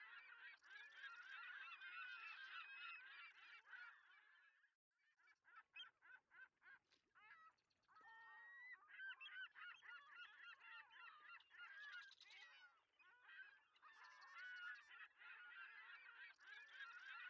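Faint, dense chatter of many birds calling over one another. It breaks off for a moment about five seconds in, then comes back sparser before filling in again.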